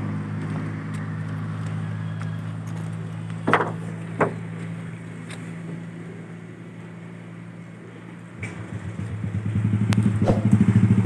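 A motor vehicle engine running steadily at idle, with two short knocks a few seconds in. About three-quarters of the way through, a louder engine with a rapid pulsing beat comes up and grows.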